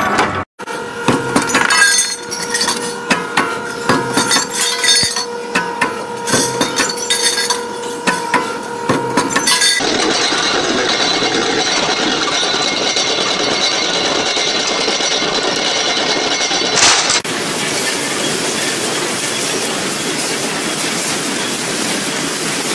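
Steel chain links clanking and clinking at a chain-forming machine, with a steady machine hum under dense irregular knocks. About ten seconds in this cuts to a steady mechanical running noise from a chain conveyor, which changes to a different steady machine noise near the end.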